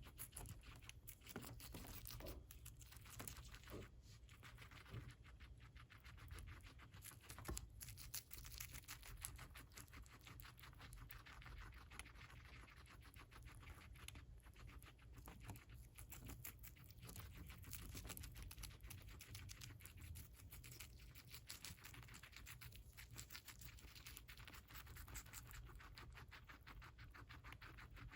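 Guinea pig chewing lettuce: a steady run of rapid, fine crunching clicks.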